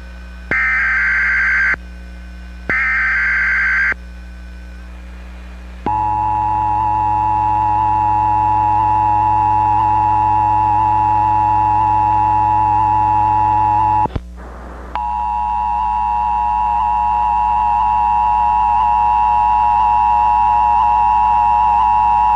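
Emergency Alert System tones. First come two short buzzing bursts of SAME header data. About six seconds in, the steady two-note attention signal (853 and 960 Hz sounded together) begins. It breaks off briefly about fourteen seconds in, then starts again and runs almost to the end. It is the alert tone that goes before an emergency message or a monthly test.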